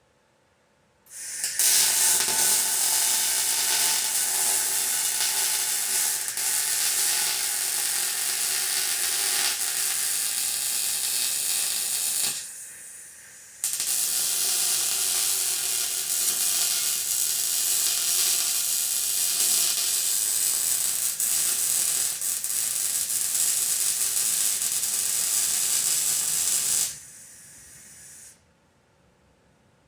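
Welding arc crackling and hissing steadily through two long welds of about eleven and thirteen seconds, each followed by a quieter hiss for a second or so after the arc stops.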